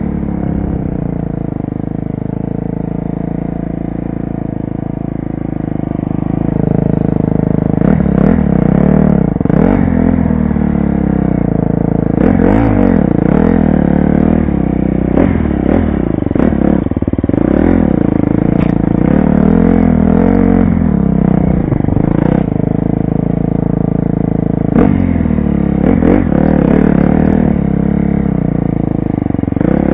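2012 KTM 250 SXF's single-cylinder four-stroke engine, heard from a helmet camera, running fairly evenly for the first several seconds, then revving up and down again and again as the throttle is opened and closed, with occasional clatter.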